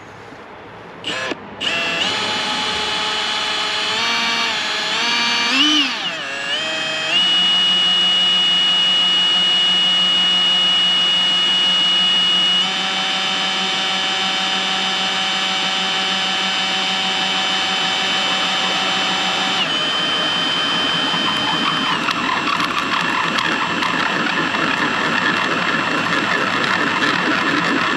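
Cordless drill drilling a mounting hole through a bass boat windshield. After a couple of short trigger pulls about a second in, the motor runs as a continuous whine. Its speed changes several times, rising and falling early on, then dropping in pitch twice, and the sound turns rougher near the end as the bit cuts.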